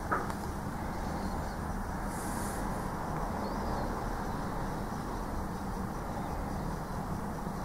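Steady background noise, mostly low in pitch, with a faint click near the start.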